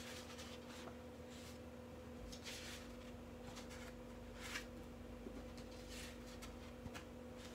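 Large paper pattern sample sheets being shifted and slid over a cutting mat: several soft paper swishes and rustles, over a faint steady hum.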